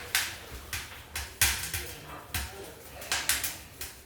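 Small spruce and pine kindling crackling in the firebox of a Plamen Maestral stove-fireplace burning at its maximum setting, with about a dozen irregular sharp pops. The loudest comes about one and a half seconds in.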